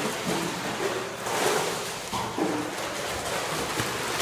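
Pool water splashing and sloshing as a dog paddles through it.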